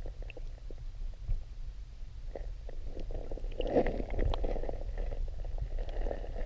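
Muffled underwater sound through a submerged action camera's housing: a steady low water rumble with small scattered clicks, louder for about a second around four seconds in as a released smallmouth bass swims off.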